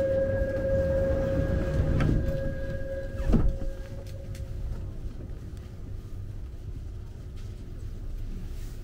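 Commuter train doors closing: a steady door-warning buzzer tone sounds, and about three seconds in the sliding doors shut with a heavy thump. The tone fades away soon after, over the low rumble of the train car.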